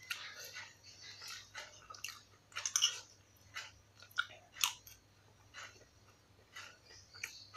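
A person chewing a mouthful of rice and crunchy kerupuk crackers close to the microphone: irregular crisp crunches, strongest about three seconds in and again a little past the middle.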